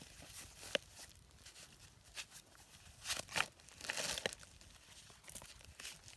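Dry reed stalks and plastic litter crackling and crinkling under shifting feet and hands, in scattered short crackles with a denser cluster about three to four seconds in.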